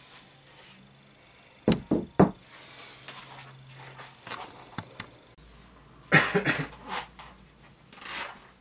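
Wooden speaker cabinet set down on a wooden workbench: three quick knocks about two seconds in. A second, denser cluster of knocks and handling noise follows around six seconds in.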